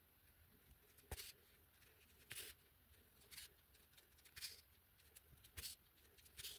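Near silence with faint, short rustles about once a second: a needle and yarn being pulled through crocheted fabric while stitching decorative cross-stitches.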